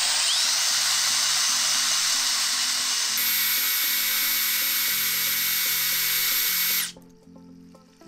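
Diamond hole saw in a handheld electric drill grinding into the base of a hard ceramic vessel: a loud, steady abrasive grinding with a high whine, which cuts off about seven seconds in once the hole is through.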